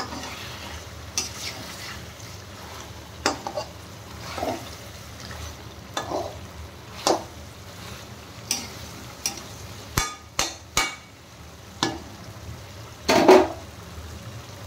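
Metal spatula scraping and knocking against a metal kadai, stirring chicken pieces in oily gravy, in about a dozen irregular strokes with the loudest near the end, over a steady low sizzle of frying.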